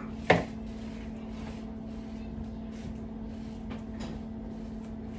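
Kitchen handling sounds while cooked chicken is picked off the bone by hand into a mixing bowl: one sharp knock about a third of a second in, then a few faint clicks. A steady low hum runs underneath.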